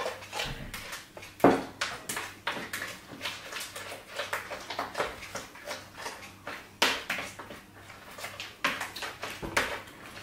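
A utensil stirring a wet yogurt-and-spice marinade in a large bowl: irregular wet scrapes and clicks against the bowl, with sharper knocks about a second and a half in and again near the seventh second.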